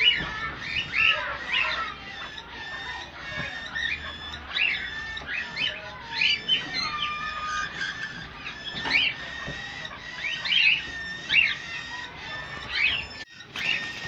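A flock of caged cockatiels chirping and calling together, many short rising and falling calls overlapping without pause, with a brief break near the end.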